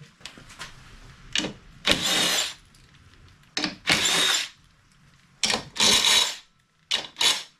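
Cordless power driver run in a series of short bursts, each up to about a second long, with two quick blips near the end, driving bolts into the front bumper.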